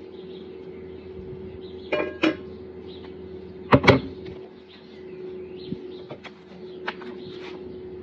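Kitchenware being handled: a plastic mixing bowl and spoon knocking and clattering, with a loud double knock about halfway through and a few lighter ticks after, over a steady low hum.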